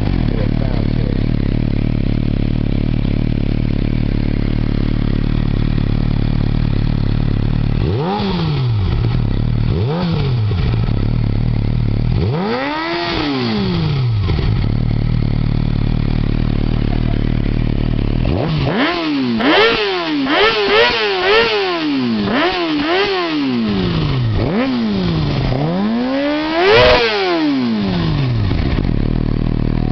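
Motorcycle engine idling steadily, then revved three times, then given a quick run of throttle blips, the last one the highest.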